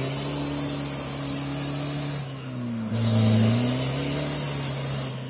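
Modified Nissan Frontier NP300 pickup's engine revving hard under load as it tries to climb a mud slope, tyres spinning and throwing mud. It holds high for about two seconds, eases off briefly, then revs up again before dropping back near the end.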